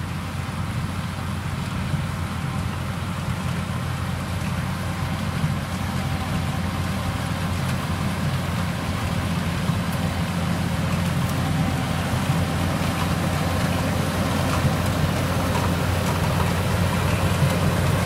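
Yanmar YH850 rice combine harvester's diesel engine running steadily under load as it cuts rice, the threshing machinery adding a continuous rushing wash. It grows gradually louder as the machine draws near.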